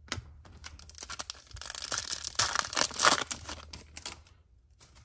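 A trading-card pack wrapper being torn open and crinkled, loudest about two to three seconds in, with light clicks of the cards being handled before and after.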